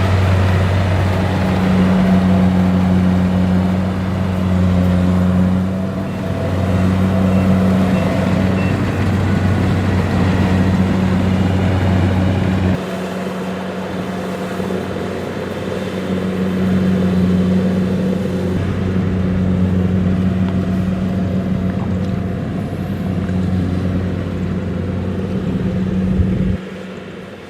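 Kubota DC-70 Plus combine harvester's diesel engine running with a steady drone. The deep low end drops away suddenly about halfway through and again near the end.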